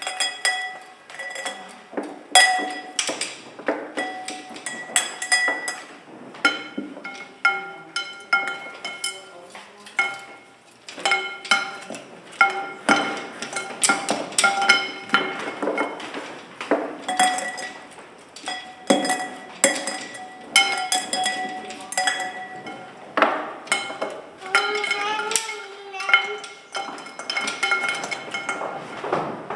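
Light clinking strikes on small ringing objects, coming irregularly one or two a second, each ringing on briefly at a few clear bell-like pitches. A wavering pitched tone sounds for a couple of seconds near the end.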